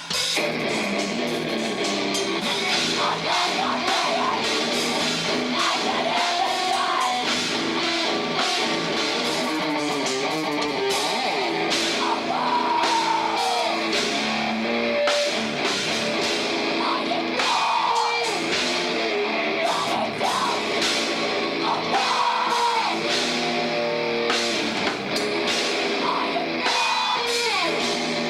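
A live rock band playing a heavy song at full volume: drum kit pounding and distorted electric guitars and bass.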